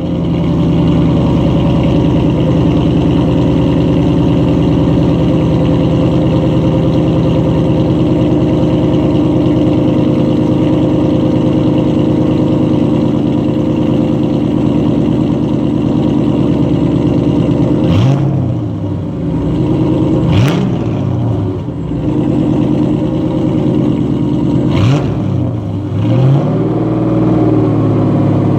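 Chevrolet Camaro SS's LS1 5.7-litre V8 idling steadily through a catless exhaust: stock manifolds into a single SLP resonator split into dual tips. From about eighteen seconds in it is revved in quick throttle blips, about four times.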